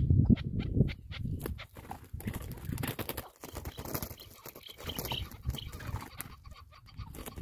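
Chukar partridges calling, a run of sharp, quick clucking notes, then a flurry of wingbeats and scuffling as a bird flaps. Wind rumbles on the microphone throughout.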